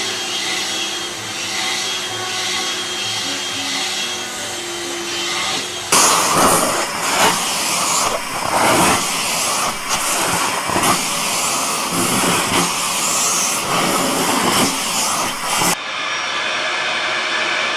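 Vacuum cleaners running across three successive clips. First a steady run; from about six seconds a louder, uneven stretch that surges and dips repeatedly; then a steady run again near the end.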